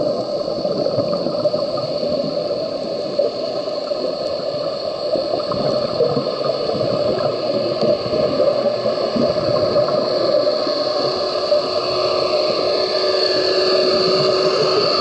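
Steady underwater noise picked up by an action camera in its waterproof housing: a continuous muffled hiss and hum, with a few faint tones sliding in pitch near the end.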